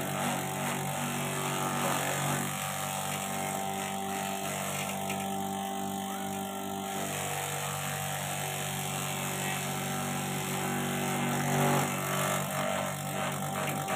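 Small multipurpose feed chopper-grinder driven by a Shimizu electric motor, running steadily as it grinds: a motor hum under a noisy grinding whirr.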